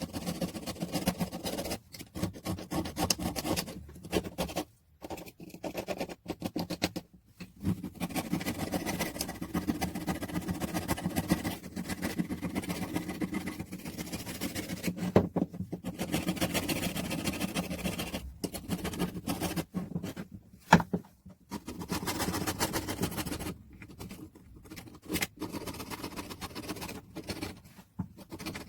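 Scraping and scratching on the old hand drill's metal parts, in stretches of a few seconds with short breaks and a couple of sharp clicks.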